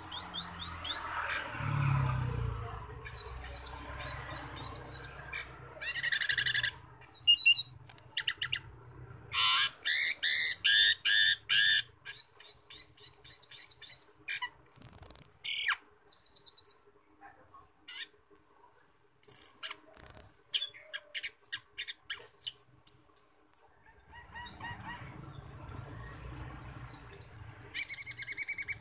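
Asian glossy starling (cucak keling) singing a varied, fast run of high chirps, rapid trills and buzzy notes, broken by short pauses, with a few sharp, loud whistles in the middle.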